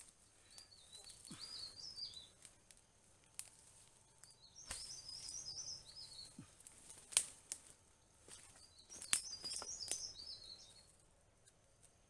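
A small songbird sings three quick, high warbling phrases a few seconds apart, over a few sharp knocks and handling noises as a wooden pole is pushed upright into the ground.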